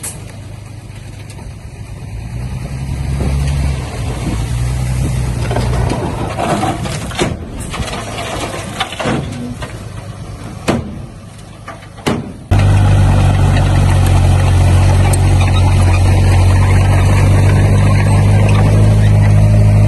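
Heavy construction machinery's diesel engine running, with a few sharp knocks in the first half; about twelve seconds in, the engine sound abruptly becomes much louder and steady.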